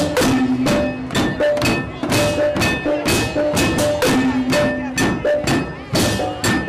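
Balinese tek-tekan ensemble playing: wooden and bamboo percussion (kul-kul and okokan) struck in a fast, even beat of about three strikes a second, with drums and ringing gamelan tones between the strikes.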